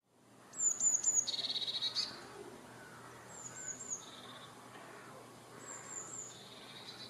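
A bird calling three times, each call a quick run of three short high descending notes followed by a fast buzzy trill; the first call is the loudest.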